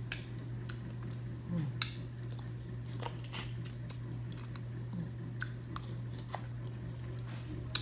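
A person chewing and biting char-broiled oysters close to the microphone, with scattered short, sharp mouth clicks and smacks over a steady low hum.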